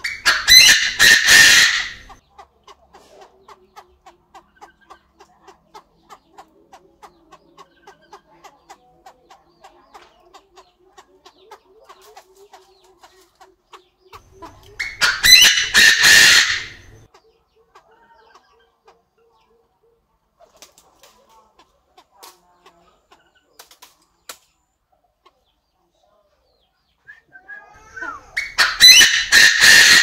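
A Chinese francolin (đa đa partridge) crowing: three loud, rapid staccato phrases of about two seconds each, spaced roughly fifteen seconds apart.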